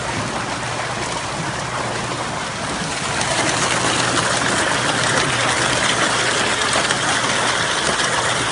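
Water splashing and churning as a mass of fish thrash at the surface in a net beside a boat. The rushing splash gets louder about three seconds in, with a low steady hum underneath.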